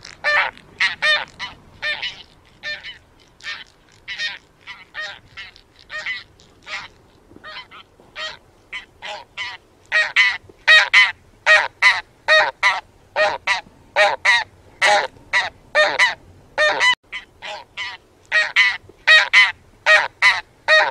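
A flock of taiga bean geese honking in flight: a rapid run of short calls, several a second, fainter for a few seconds and then louder from about halfway through.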